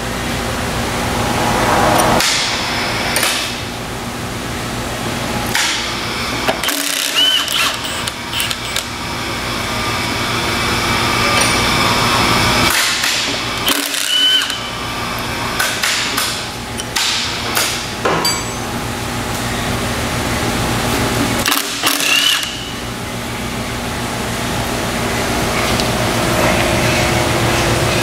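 Cordless impact wrench hammering in long runs, backing out the bolts of an electric motor's lower end bell, with brief stops about every seven or eight seconds, each marked by a short rising chirp.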